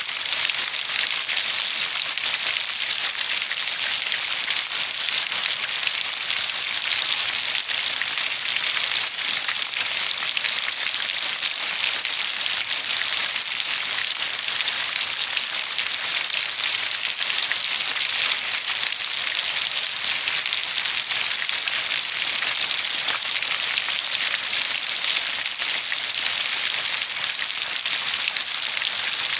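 Steady heavy rain falling on a surface, a dense, even hiss with a fine patter of drops throughout.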